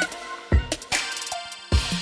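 Background electronic music with a drum-machine beat.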